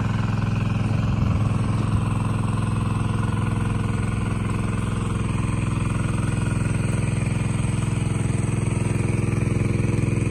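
Small engine-driven water pump running steadily at a constant speed, pumping water out of a pond.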